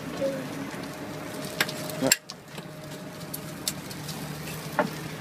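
Pancakes and eggs sizzling on a flat iron griddle, with a few sharp clicks and scrapes of a metal spatula on the griddle; the sharpest knock comes about two seconds in.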